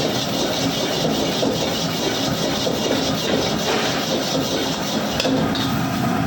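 Chicken fried rice frying in a pan, a loud steady sizzling hiss.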